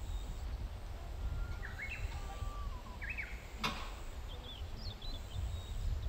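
A few short bird calls, chirps that step up and down in pitch, over a steady low rumble, with one sharp click a little past the middle.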